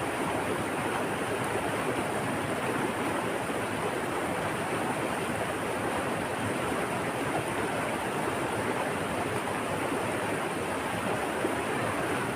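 Steady rushing of flowing water, even and unbroken, with a faint high thin tone held over it.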